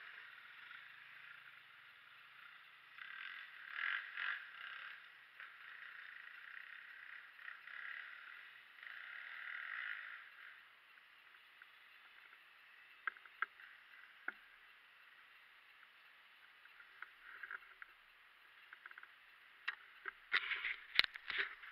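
Muffled, distant dirt bike engine revving in swells as it climbs away, dying out about ten seconds in. After that come faint scattered clicks, and a cluster of louder knocks near the end.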